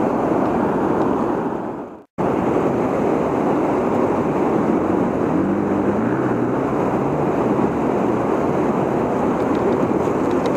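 Steady rush of river water spilling over a low dam and running past, with a faint low hum gliding up and down in the middle. The sound cuts out for an instant about two seconds in.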